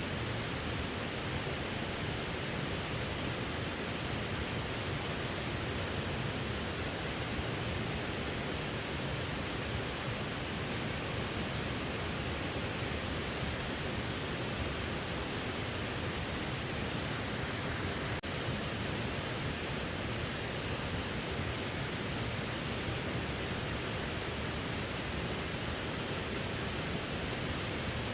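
Steady rushing of falling water from a waterfall, an even hiss with no change, broken only by a momentary dip about two-thirds of the way through.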